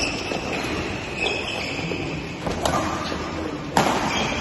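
Badminton rally: sharp racket strikes on the shuttlecock, one at the start, one about two and a half seconds in and the loudest near the end, over the steady background noise of the hall.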